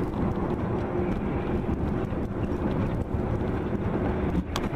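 Steady low rumble of a moving vehicle's engine and tyres on the road, heard from inside the vehicle, with a faint steady hum. A couple of sharp clicks come near the end.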